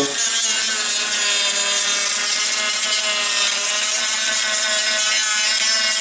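Dremel rotary tool running at a steady speed with a wheel fitted, grinding and scraping glued-down gravel ballast off a model railroad roadbed: an even motor whine over a gritty scraping.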